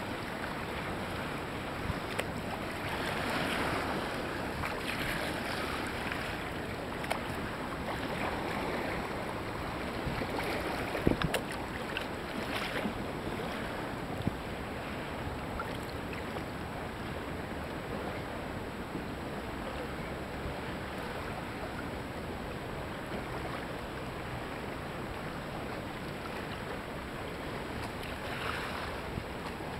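Choppy river water splashing around a sea kayak, with wind buffeting the microphone. There is a short cluster of sharp knocks about eleven seconds in.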